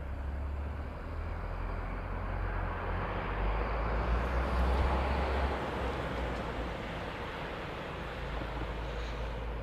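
Articulated city bus driving slowly round a turning loop. Its engine and tyre noise swells to its loudest about halfway through and then eases off, over a steady low rumble.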